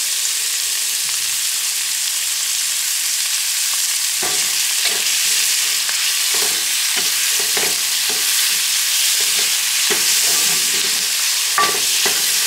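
Goat kidneys sizzling in hot ghee with onion and garlic in a metal pan. From about four seconds in, a wooden spoon repeatedly stirs and scrapes them across the pan.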